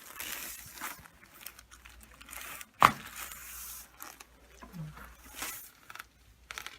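Light rustling of clothing and table paper, with one sharp crack about three seconds in, typical of a joint cavitating during a chiropractic adjustment.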